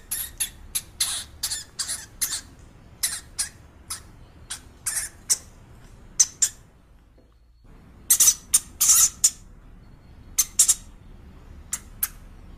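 Guinea pig crunching shredded carrot: a quick, irregular run of crisp bites and chews, with a pause of about a second just past halfway.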